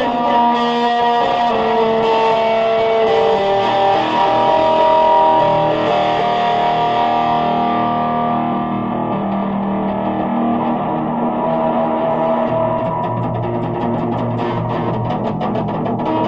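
Music with guitar: a melody of held notes that moves from pitch to pitch over a steady accompaniment.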